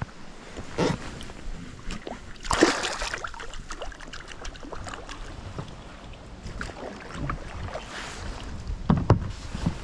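Knocks, rustles and water splashes around an inflatable rowing boat with oars, in scattered bursts, the loudest about two and a half seconds in and again near the end.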